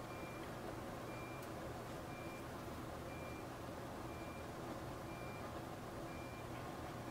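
A short, high electronic beep repeating evenly about once a second, over a steady low hum.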